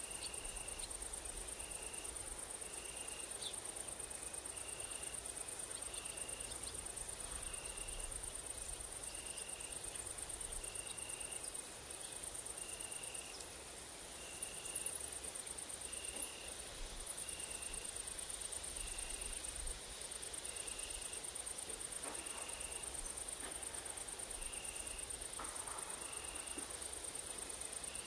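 Grasshoppers and crickets stridulating in a dense, continuous high-pitched shrill, with one insect chirping a short, even note about once a second. Light wind rumbles underneath.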